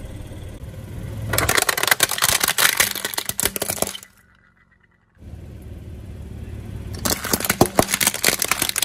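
Hard plastic toy car cracking and snapping under a slowly rolling car tyre, in two stretches of dense crackling split by a short silent gap, with a low rumble of the tyre before each.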